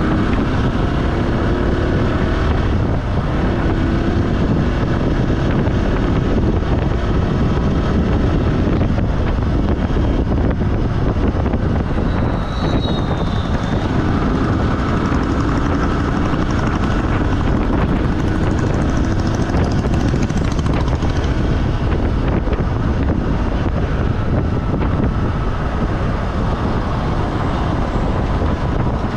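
A vehicle travelling along a road: steady engine and road rumble, with faint engine tones drifting slowly up and down in pitch.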